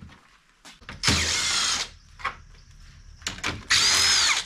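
Ridgid cordless drill-driver spinning in two short bursts, under a second each, as it backs out fasteners; the motor whine shifts in pitch within each burst. Light clicks of handling come between the bursts.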